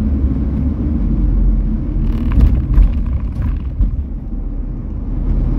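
Steady low rumble of a car driving along a road, engine and tyre noise, with a few faint knocks about halfway through.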